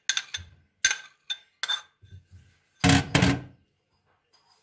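Dishes clinking against a glass mixing bowl as melted butter is emptied into the flour: about four short clinks with a brief ring, then a louder double knock about three seconds in.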